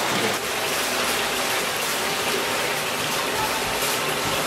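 Steady rush of running water, as in the inflow to trout-fry rearing tanks.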